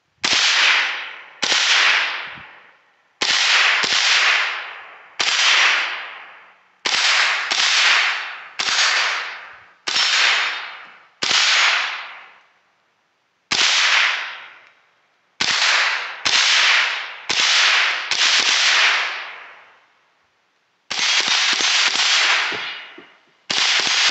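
Semi-automatic Smith & Wesson M&P 15-22 rifle in .22 LR, fired at targets: about twenty sharp shots in uneven strings, some in quick pairs, each ringing out over about a second. Short pauses come a little past halfway and again just before the last few shots.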